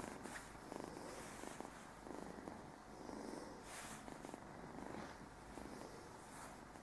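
Young red Burmese kitten purring quietly and steadily, the purr swelling and easing in a regular rhythm.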